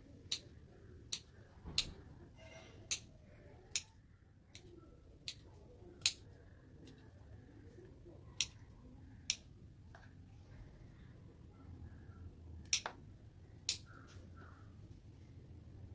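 Hand pruning shears clicking shut about eleven times, sharp short snaps spaced irregularly, with a longer pause of a few seconds after the middle, as the potted kamini (Murraya exotica) bonsai is trimmed.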